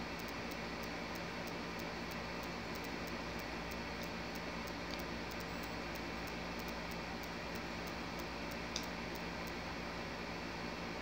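Steady hiss of room tone with a faint, regular ticking about three times a second and a single sharp click near the end.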